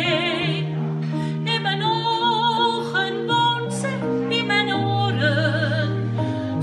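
A woman singing a slow Dutch ballad through a handheld microphone over a backing track of plucked strings and steady bass notes. She holds notes with a wide vibrato near the start, about two seconds in and again about five seconds in.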